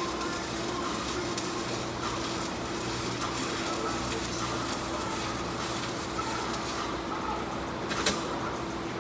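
Arc welding a steel plate onto a dump truck bed: the welding arc crackling steadily over a steady hum. The crackle's hiss thins about seven seconds in, and a sharp knock comes about a second later.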